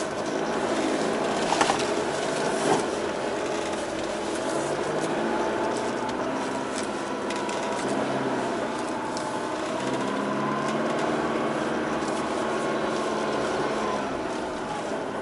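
Four-wheel-drive vehicle's engine running under load through soft dune sand, heard from inside the cabin, its pitch rising and falling with the throttle and climbing for a few seconds past the middle. A couple of sharp knocks from the cabin come about one and a half and two and a half seconds in.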